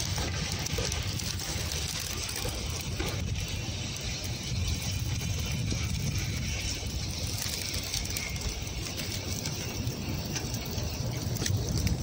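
Strong wind in a snowstorm buffeting the microphone: a steady low rumble with a hiss over it.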